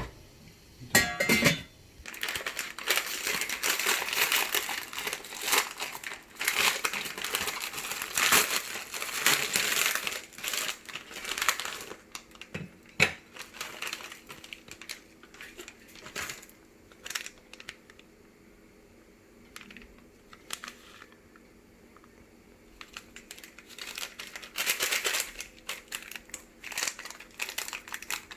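Plastic instant-ramen wrapper crinkling in irregular bursts as it is handled and opened, easing off for a while and starting again near the end.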